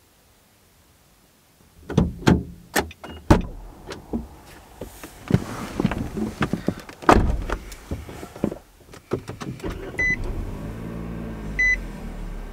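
Driver getting back into a parked car: clicks and knocks of the door and of him settling into the seat, with the door shutting about seven seconds in as the loudest knock. Then the car's warning chime beeps three times, about a second and a half apart, over a low steady hum.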